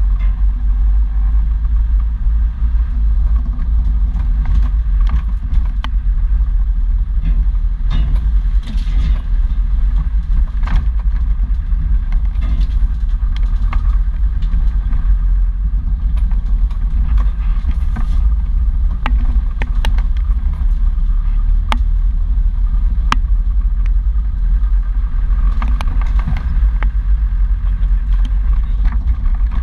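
Off-road vehicle driving along a rough dirt track: a steady low engine and drivetrain rumble, with frequent short knocks and rattles as it goes over bumps.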